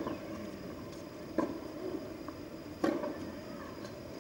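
Rackets striking a tennis ball back and forth in a baseline rally: sharp hits at a steady pace, about one every second and a half.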